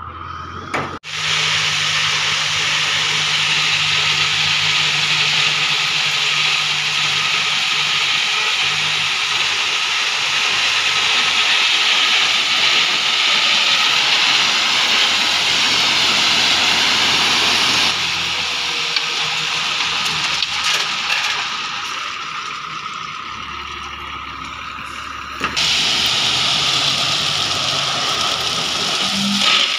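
A tipper truck with its dump body raised, 40 mm crushed stone aggregate sliding out over the tailgate in a steady rushing hiss over the truck's running engine. The rush starts abruptly about a second in, eases off around eighteen seconds in, and surges again about seven seconds later.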